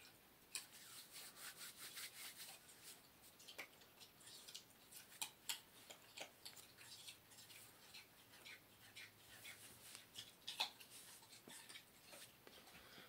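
Faint, scattered clicks, taps and rubbing of hands handling cables and gear close to the microphone.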